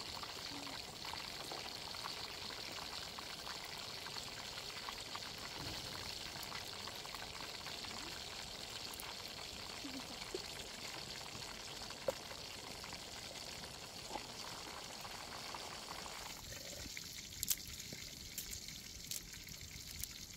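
Steady rush of flowing river water. Near the end it gives way to a quieter background with a few sharp clicks as garlic cloves drop into a wooden mortar of chilies.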